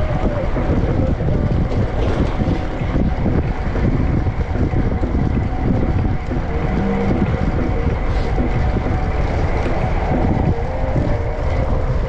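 Steady wind rumble on an action camera's microphone as a fixed-gear bicycle is ridden at speed.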